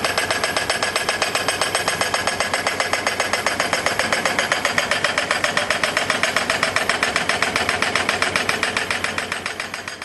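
Pile-driving hammer on a foundations rig striking rapidly and evenly, about nine blows a second, fading away near the end.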